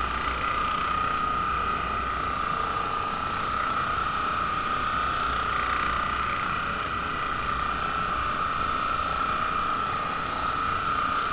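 Percussive massage gun running steadily, its motor giving a constant high whine.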